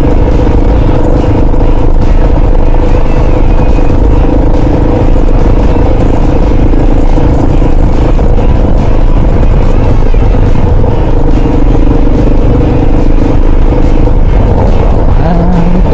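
Kawasaki KLR650 single-cylinder motorcycle engine running steadily while riding, with dense low rumble from wind and the road underneath.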